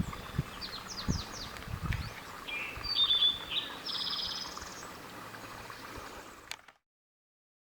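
Small songbirds chirping and trilling: short sweeping calls and a couple of fast pulsed trills over the first few seconds, with a few low thumps near the start. The sound then cuts off abruptly to silence about a second before the end.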